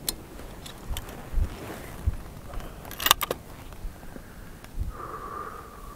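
Sharp clicks and rattles of rifle handling at the firing line, loudest in a quick cluster about three seconds in, over low thumps of wind on the microphone. A faint steady tone starts about five seconds in.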